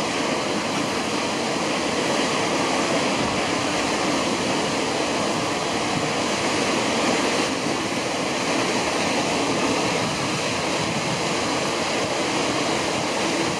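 Waterfall rushing steadily: an even, unbroken noise of falling water from Brandywine Falls.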